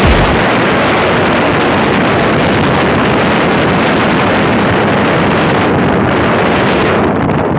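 Steady rush of wind buffeting the microphone on a moving motorcycle, the bike's running buried in it. A music beat stops right at the start.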